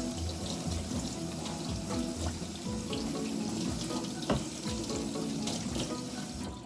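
Kitchen tap running water into a sink, a steady rush, over background music. A single sharp knock about four seconds in.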